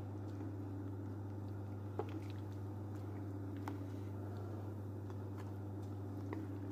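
Wooden spoon stirring meat in a steel pot of broth, with wet squelching and a few light knocks against the pot, over a steady low hum.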